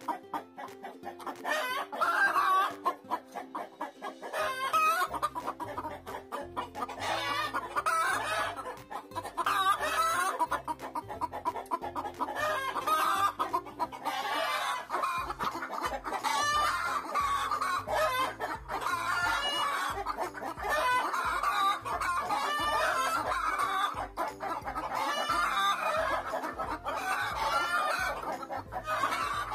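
Chickens clucking and calling repeatedly over background music; the music's bass line comes in a few seconds in.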